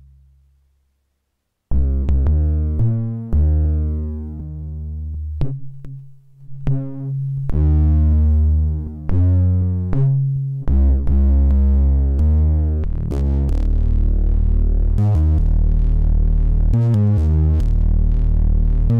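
Deep bass notes from a DIY analog synthesizer: after a short pause, a line of separate notes, each starting sharply and some dying away. From about 13 seconds in, the bass holds on continuously, changing note without a break.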